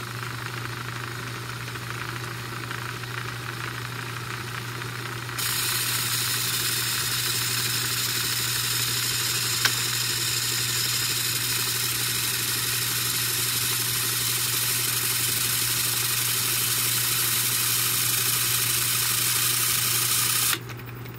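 Telex Copyette 1 & 3 high-speed cassette duplicator running: a steady motor hum under a hissing whir from the tape transport. It gets louder about five seconds in, gives a single click near the middle, and drops away sharply just before the end.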